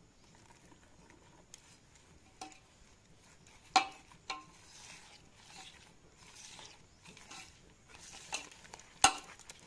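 A bare hand mixing ground rice flour into ripe jackfruit pulp in a metal bowl: faint, repeated wet squishing and rustling strokes, with a few sharp clicks, the loudest about four seconds in and near the end.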